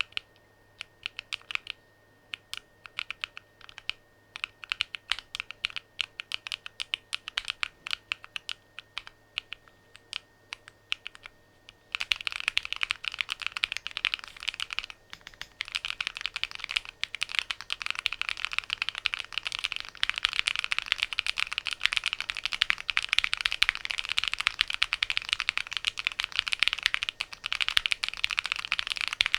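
Typing on a DIY Alice-layout mechanical keyboard: separate keystroke clicks at first, then from about twelve seconds in, fast continuous typing that is louder and denser.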